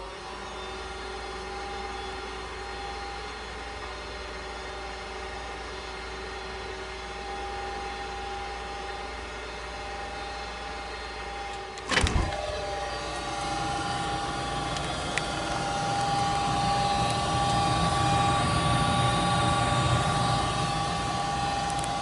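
Goodman furnace starting a heating cycle: its draft inducer motor, just spun up, runs with a steady hum. About halfway through there is a sudden thump with a burst of noise, and then the running grows louder with a low rumble as the burners light.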